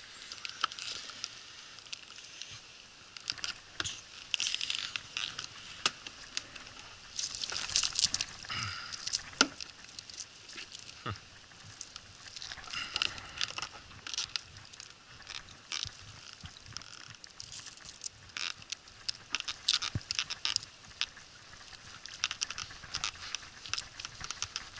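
Water splashing and dripping as a magnet-fishing rope is hauled hand over hand out of the water, with a snagged cast net coming up on it. The splashes and crackles are irregular and sharp.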